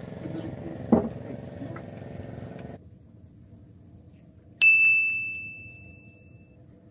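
A single bright ding, like an editing sound effect, sounds about two-thirds of the way in and rings out for a couple of seconds as a marker pops up over a rod. Before it, a steady engine hum with one sharp knock about a second in cuts off abruptly, leaving quiet outdoor background.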